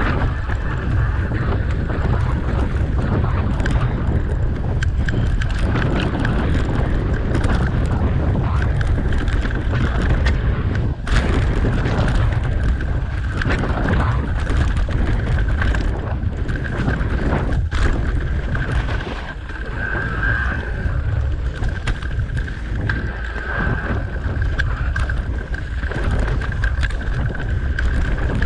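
Wind buffeting the microphone of a handlebar-mounted camera on a mountain bike riding a rough dirt trail, with knocks and rattles from bumps, the loudest about 11 and 17.5 seconds in. A steady high whine runs underneath.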